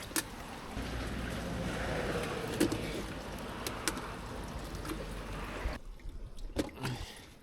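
Water sloshing and splashing in a fish tank and carrying container as live ayu are scooped out, with scattered knocks and clicks. A low hum runs underneath from about a second in until near six seconds, when the sound drops away sharply.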